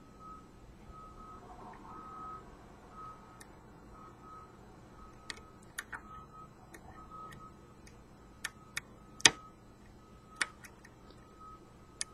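Lock pick working pins inside a pin-tumbler challenge lock during single-pin picking: scattered small sharp clicks, sparse at first and more frequent in the second half, with one louder click about nine seconds in. A faint, steadily repeating beep tone runs underneath.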